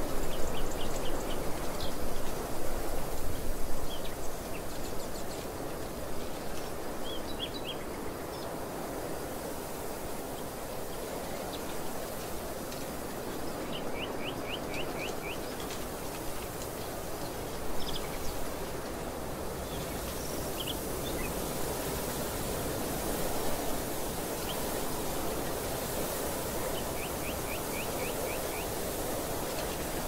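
Steady rushing wind across an open field, gustier in the first few seconds, with a small bird giving short rapid trills of five or six chirps every few seconds.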